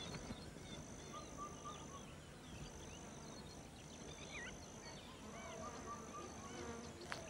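Faint wetland nature ambience: a high, thin buzzing tone that stops and starts about every second, with scattered short bird chirps and a few soft low calls.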